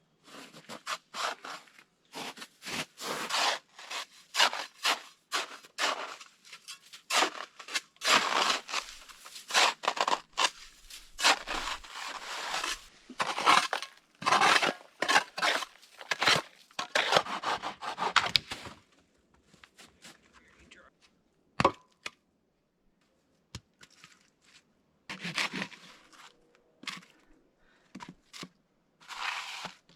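Hand saw cutting through wood for firewood: a long run of rasping back-and-forth strokes, then after a pause a few scattered strokes, a sharp knock and a short burst of sawing near the end.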